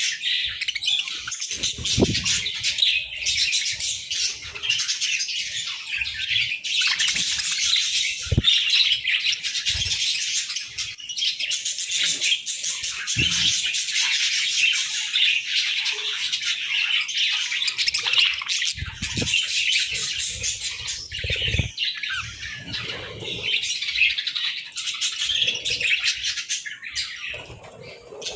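A flock of budgerigars chattering and chirping continuously, many birds at once, with occasional soft low thumps.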